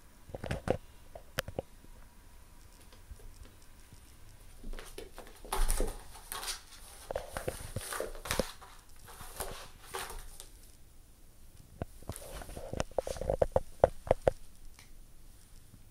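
Cat clawing and rubbing against a corrugated cardboard scratcher: a few scratches at first, a dense stretch of scraping and rustling in the middle, then a quick run of scratchy taps near the end.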